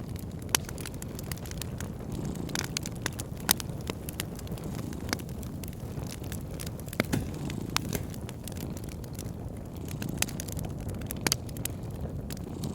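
Wood fire crackling, with sharp pops scattered irregularly over a steady low rumble.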